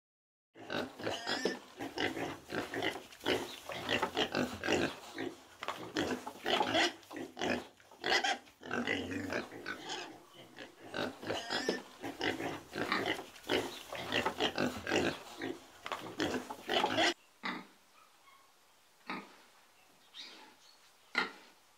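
Domestic pigs grunting, a dense, continuous stretch of overlapping grunts. About seventeen seconds in it cuts to a quieter recording with a single grunt now and then.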